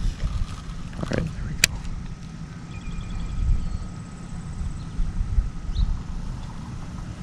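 Low, steady rumble of wind buffeting the microphone at the water's edge, with one sharp click about a second and a half in.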